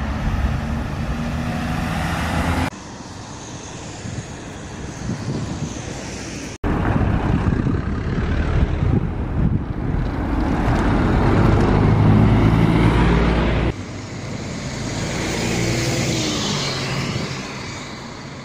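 Road traffic and city buses driving past, in short recordings joined by abrupt cuts. In the middle an articulated city bus approaches and passes close, its engine hum swelling to the loudest point before the sound breaks off at a cut; after that a quieter bus passes and draws away.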